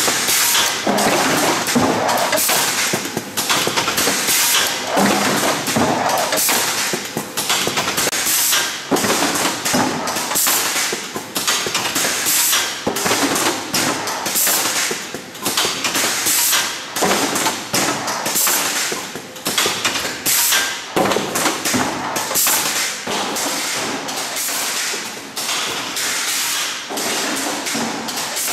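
TE-700W2 automatic tray erector running at production speed, folding and forming corrugated cardboard trays: a loud, continuous, uneven clatter of thuds and taps several times a second over a steady mechanical noise.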